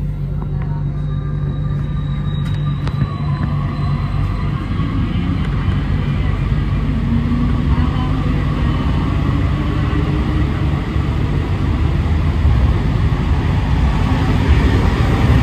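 Interior running noise of an Alstom NS-93 rubber-tyred metro train pulling away: a low rumble and a motor whine that slowly rise in pitch and loudness as the train gathers speed.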